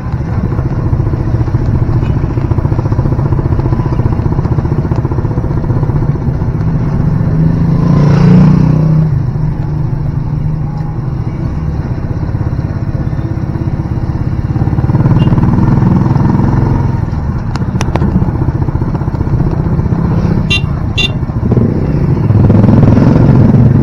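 Motorcycle tricycle's engine running, heard from inside its sidecar cab along with road noise. It swells louder three times over the ride, with a few short sharp clicks near the end.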